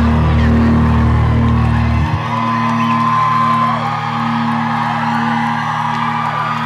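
Live rock band music, loud and heavily distorted as picked up by a handheld camera in the crowd. The deepest bass note drops out about two seconds in, leaving held chords and a long sustained higher note.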